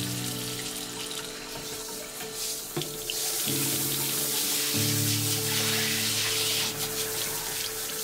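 Bathroom sink tap running into the basin. About three seconds in it switches to a spray and the water hiss grows louder. Background music plays underneath.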